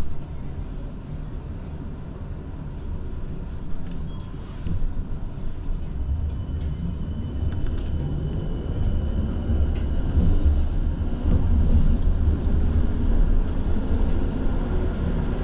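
Electric city tram in motion, heard from inside the car: a low rumble of wheels and running gear that grows louder from about five seconds in, with faint whining tones above it, one of them rising near the end.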